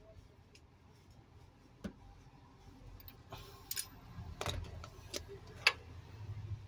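Irregular metallic clicks and light knocks from a ratchet and socket as a new spark plug is worked into the engine, sparse at first and more frequent and louder in the second half.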